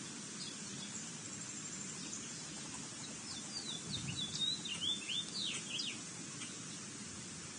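Small bird chirping in a quick run of short, high notes that sweep downward, over a steady outdoor hiss, with a few scattered chirps before it.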